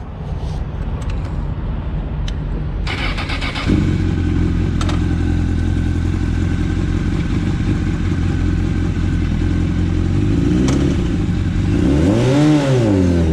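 Honda CBR1000RR inline-four engine running at speed. About four seconds in the throttle opens and the engine holds a steady pitch. Near the end the revs climb sharply and drop back.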